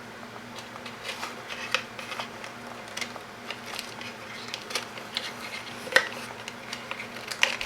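Nylon zip ties being fastened around wires: irregular plastic clicks, ratcheting and rustling as the ties are threaded and pulled, with two sharper clicks near the end. A faint steady hum sits underneath.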